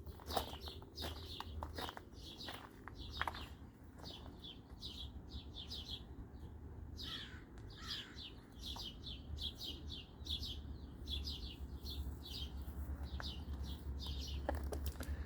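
A small bird chirping over and over in quick short falling notes, about two to three a second, over a low steady rumble.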